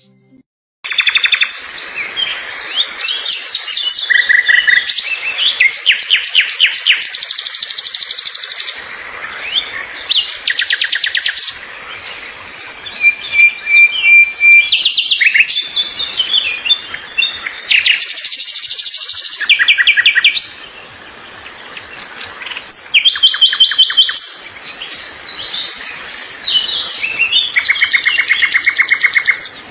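A chorus of several songbirds singing and chirping over one another: rapid trills, runs of repeated high notes and short whistled phrases. It begins about a second in.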